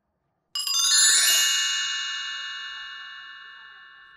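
Chime sound effect: a bright cascade of bell-like tones that starts suddenly about half a second in, then rings on and slowly fades.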